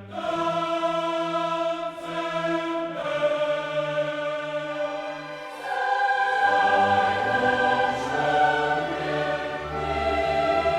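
Background choral music: a choir singing slow, held chords that shift every few seconds.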